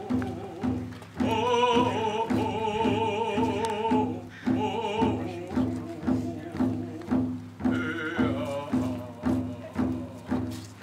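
Hand drums beating a steady, even pulse about twice a second, with a group of voices singing vocables ("oh, oh, oh") over them in phrases that come and go: a ceremonial drum song.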